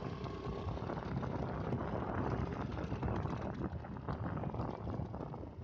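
Wind buffeting the microphone on a moving motorcycle, with the motorcycle's engine running underneath as a steady rumble.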